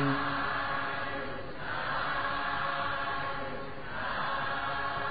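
A single chanted note ends at the start, then a group of voices chants together in two swells, blurred with no single clear pitch, in a Buddhist loving-kindness (metta) chant.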